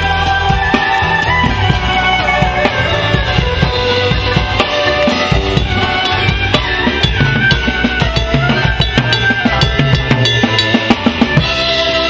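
Live instrumental band music: a clarinet playing a winding melody over a busy drum kit.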